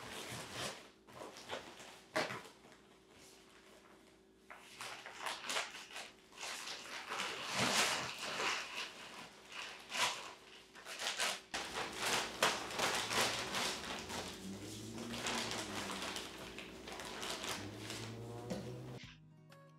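Thin plastic wrapping around a bag of potting soil rustling and crinkling in irregular bursts as gloved hands grip and pull it out of a cardboard box. Near the end, scissors cut into the bag.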